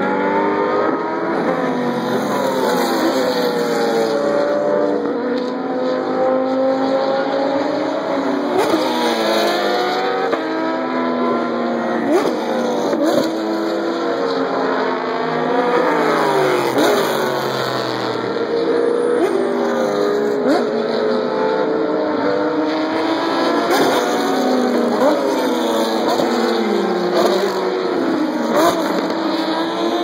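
Race cars passing at speed one after another, several engines overlapping, each engine note climbing and then dropping in pitch as the car goes by. The sound never lets up.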